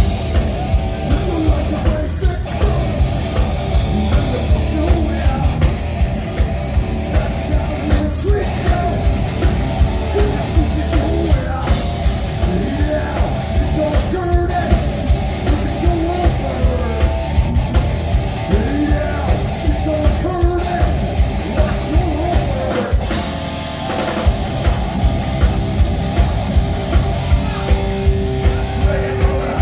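Live heavy metal band playing: distorted electric guitar, a pounding drum kit and shouted, sung vocals. The drums drop out for a moment about three-quarters of the way through, then come back in.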